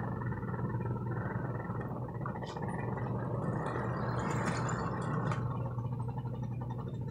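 Lionel tinplate freight train rolling past on three-rail track: a steady motor hum and wheel rumble, with a few light clicks from the wheels over the track.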